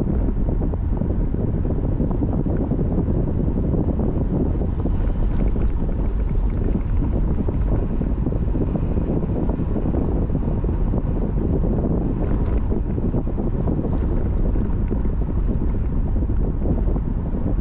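Steady low rumble of wind and road noise from a car being driven, with wind buffeting the microphone.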